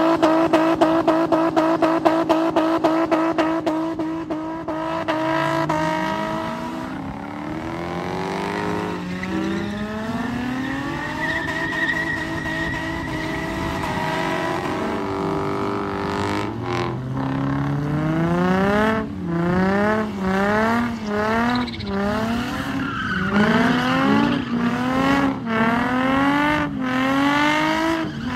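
A Lexus GS430's V8 and an Infiniti G35 sedan's V6 drifting in tandem with tyres squealing. At first the engines are held at a steady high rev with a rapid stutter. From about two thirds of the way in the revs rise and fall in quick swells about once a second.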